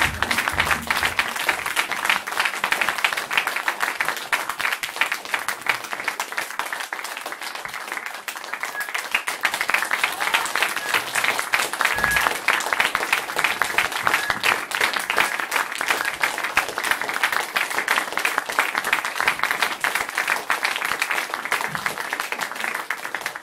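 Audience applauding: dense, sustained clapping that eases slightly partway through, swells again, and stops at the end.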